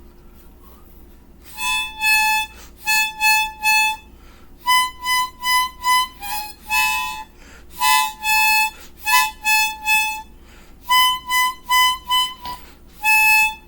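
Harmonica playing a short instrumental intro in quick phrases of single and paired notes, starting about one and a half seconds in.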